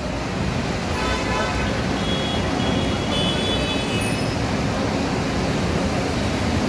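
Road traffic on a waterlogged street: a steady rush of engines and tyres on the wet road, with vehicle horns sounding several times between about one and four seconds in.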